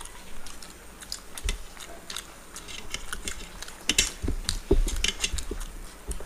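Eating by hand from stainless steel plates: fingers mixing and scooping rice against the metal, with small clicking and scraping sounds, along with chewing and mouth sounds. The clicks come thicker and louder in the second half.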